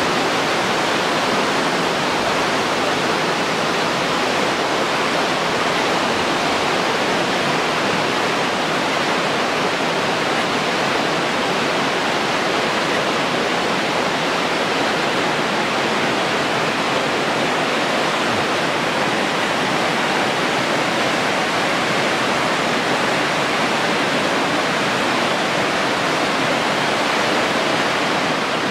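Fast-flowing mountain river rushing over rapids, a steady even roar of whitewater.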